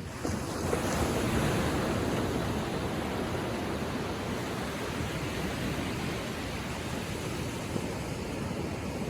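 Small ocean waves lapping on a sandy shore: a wave's wash swells about a second in and then slowly eases back, a steady hiss of surf.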